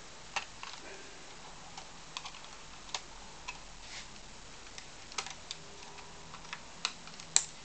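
Irregular small clicks and taps of hands working at a laptop's hard drive and plastic casing, trying to pull the drive out of its bay; the loudest click comes near the end.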